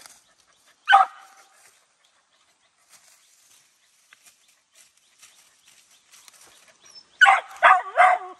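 Dog barking: a single bark about a second in, then a quick run of about four barks near the end.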